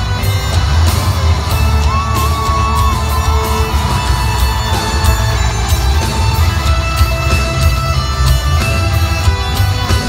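Live hard rock music played loud through a concert PA: a distorted electric guitar lead with bent, held notes over heavy bass and drums.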